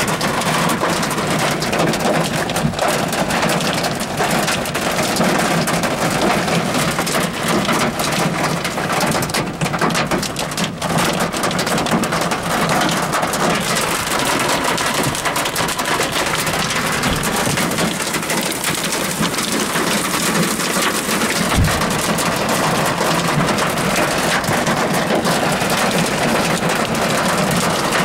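Hail and rain pelting the vehicle's hood and windshield, heard from inside: a loud, steady clatter of many small impacts.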